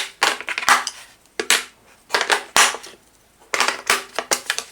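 Screwdrivers and other hand tools clicking and clattering against a plastic tool case as they are handled and put in place. The clicks come in quick clusters, with a short pause a little past the middle.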